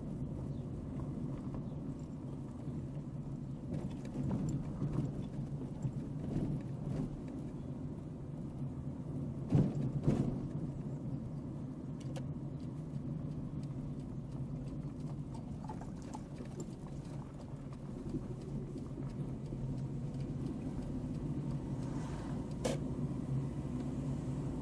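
A car driving slowly, with a steady low rumble of engine and tyres on the road. A few sharp knocks and rattles cut in, the loudest about ten seconds in.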